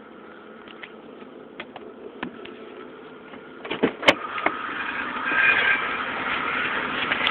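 Inside a car's cabin: a faint steady hum with scattered light clicks, then a sharp click about four seconds in. It is followed by louder rustling and handling noise as the driver's door is worked open.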